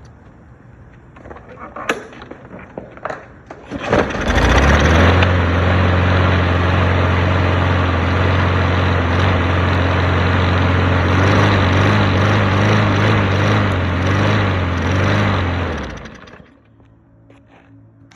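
Lawn mower engine: a few clicks and rattles, then about four seconds in it starts and runs loud and steady, then dies away and stops about two seconds before the end.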